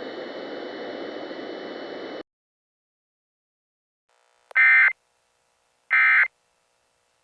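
Steady radio static hiss that cuts off about two seconds in. After a pause come the Emergency Alert System end-of-message data bursts: short, identical bursts of digital data tones, two in full and a third starting right at the end.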